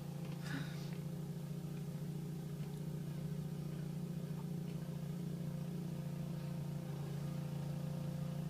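Snowblower engine running steadily at a constant speed, an even drone.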